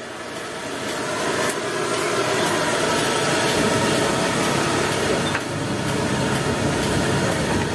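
Stir-frying in a large aluminium wok over a gas burner: a steady burner roar and sizzling, with a metal spoon now and then clinking against the pan. The sound builds up over the first two seconds, then holds steady.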